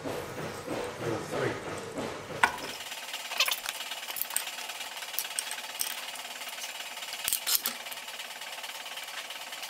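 Ratchet spanner clicking as it turns a nut on the valve of a Massey power hammer, clamped in a vise. Scattered light metal clicks and clinks follow as the valve parts are handled.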